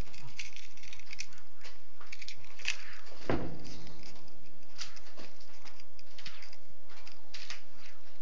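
Rustling and scattered light clicks of camera handling and movement on a bed, with one dull thump about three seconds in.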